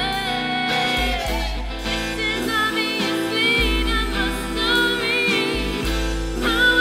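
A woman singing a song to acoustic guitar, her voice wavering and bending through held notes, over deep sustained bass notes.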